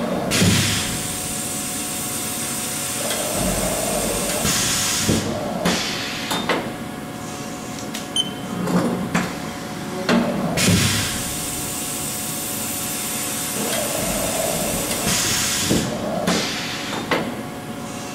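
Haas VF-5 vertical machining center running after its gearbox shifts down to 1,000 RPM: a steady machine hum with repeated clunks and two spells of hissing air, each about five seconds long, the first starting right at the beginning and the second about ten seconds in.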